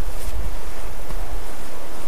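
Wind buffeting the microphone: a steady low rumble, with a brief faint rustle near the start.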